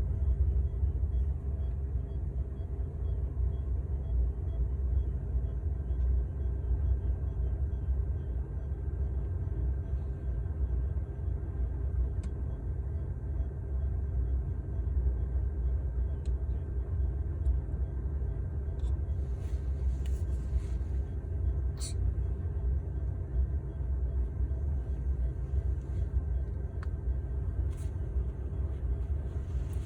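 Steady low rumble and hum of an infant incubator's fan and motor running, with a few short faint clicks about two-thirds of the way through.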